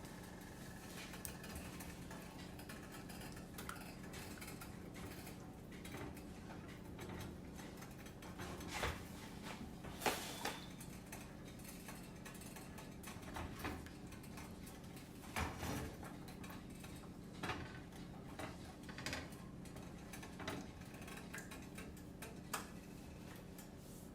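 Scattered light clicks and knocks of kitchen utensils and dishes over a steady low hum, with a few louder clacks about ten and fifteen seconds in.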